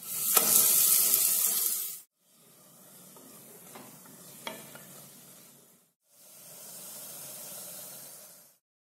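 Ground cabbage paste dropped into hot oil in a pan, a loud sizzle for about two seconds. Then, after abrupt cuts, a softer steady sizzle as the paste is stirred, with a couple of light knocks of the stirring utensil against the pan.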